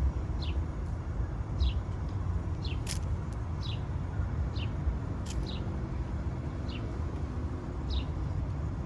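A bird chirping again and again in short falling notes, about one a second, over a steady low rumble.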